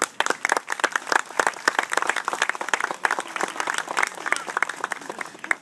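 A group of people applauding, with individual hand claps distinct. It breaks out at once and stops near the end.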